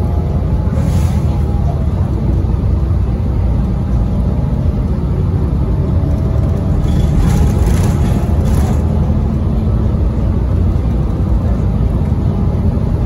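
Cabin noise of a Gillig BRT transit bus on the move: a steady low rumble of engine and road, with a faint whine running through it and brief lighter hisses about a second in and again around two-thirds of the way through.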